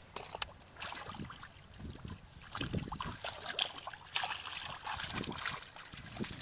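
Hands groping and splashing in shallow, muddy rice-paddy water, with irregular wet splashes and squelches of mud.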